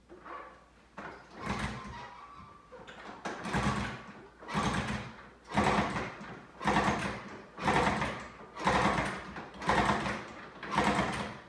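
Honda Trail 70's single-cylinder four-stroke engine being kick-started over and over, about once a second, each kick turning it over with a short rush of sound but never catching. This is a first start after a fresh top-end rebuild with a new piston.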